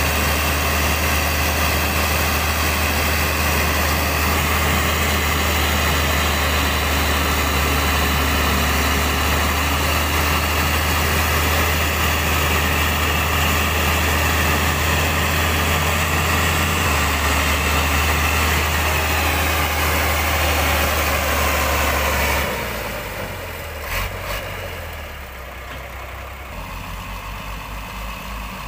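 Six-cylinder Hyundai timber truck's diesel engine running steadily and loudly while the truck is bogged to the axle in mud. About 22 seconds in it suddenly drops to a much quieter run, with a single click soon after and a low, even pulsing near the end.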